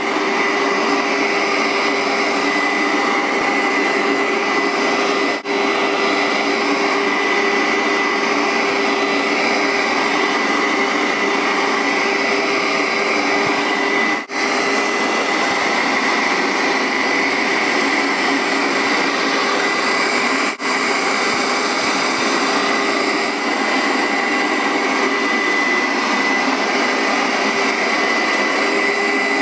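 Upright steam carpet cleaner running steadily, a loud even motor whine with a steady hum under it. It drops out briefly three times.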